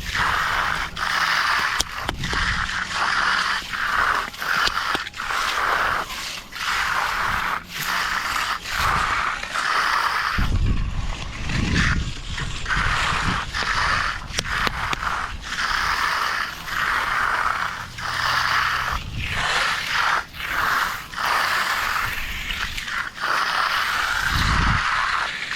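Repeated scraping strokes of a hand tool working wet concrete, about one a second, with a few low thuds in the middle and near the end.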